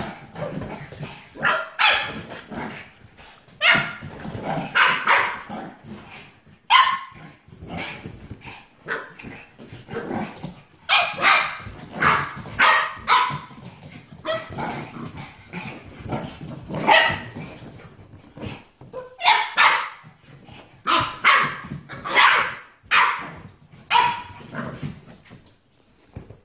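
Small dogs barking at each other in play, short sharp barks and yips that come in quick runs every second or two.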